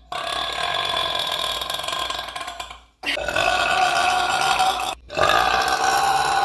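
A person's long, drawn-out burps, three in a row with short breaks between, each lasting two to three seconds; the last runs on.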